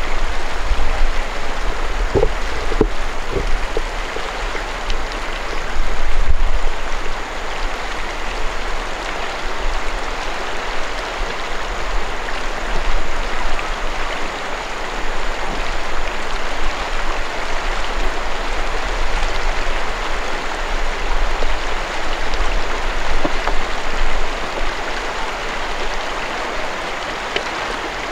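Shallow river rushing steadily over stones and gravel riffles, with a low rumble underneath.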